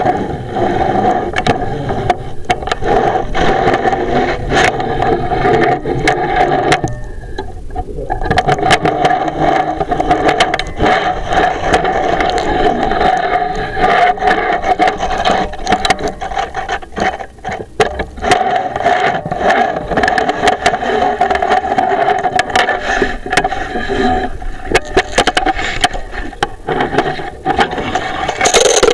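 Chimney inspection camera scraping and knocking against the inside of a flue liner as it is pushed through the flue, over a steady mechanical hum that drops out briefly about seven seconds in.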